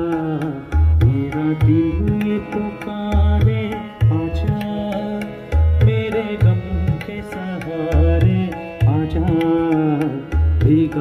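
Live music: a man sings a Hindi-Urdu song into a microphone, accompanied by a Yamaha electronic keyboard with a steady, regular drum beat.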